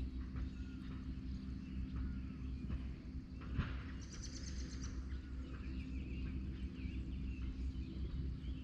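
Birds chirping and calling over a low steady hum, with a short rapid high trill about four seconds in.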